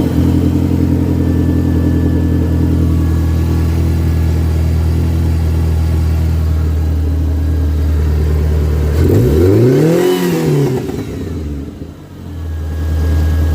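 1993 Ford Ranger's 2.3-litre four-cylinder engine idling steadily, now running on larger 19 lb injectors taken from a 3.0 Ranger to cure a misfire. About nine seconds in it is revved once, its pitch rising and falling back. The idle sags briefly, then recovers and settles.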